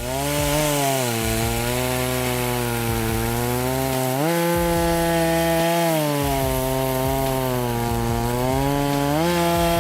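EFCO MT8200 chainsaw's 82 cc two-stroke engine running hard while sawing through wood, with a steady high engine note. The pitch rises about four seconds in, falls back about two seconds later, and rises again near the end as the throttle and load change.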